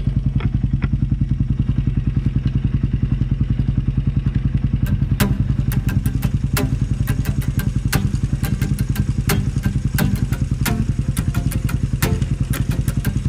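Suzuki Raider R150 carb's engine idling steadily in first gear, turning the rear wheel and drive chain. From about five seconds in, a rapid, irregular run of sharp clicks joins it as the turning chain is wiped with a rag.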